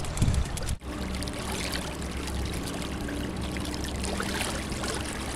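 Water trickling and splashing along the hull of an inflatable boat moving under an electric trolling motor, with a faint low steady hum. There is a brief dropout about a second in.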